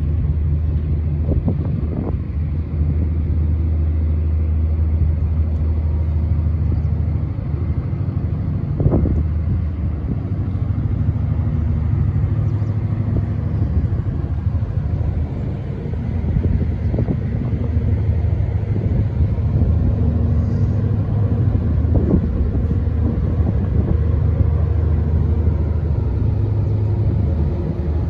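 Diesel engines of the trailing suction hopper dredger Arco Dart running as the ship passes close by: a steady low drone with a deep hum, broken by a few brief knocks.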